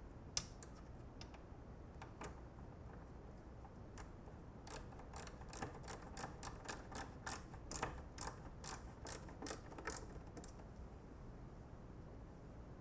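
Faint ratcheting hand tool driving the belt-guard screws: one sharp click near the start, then from about five seconds in a regular run of clicks, about three a second, for some five seconds.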